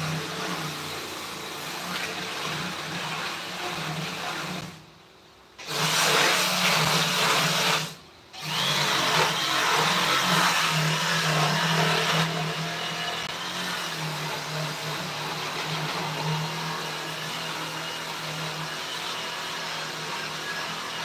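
A small electric power tool runs on wood with a steady hum. It stops twice briefly, about five and eight seconds in, and starts again each time. It is louder for a few seconds after the first restart.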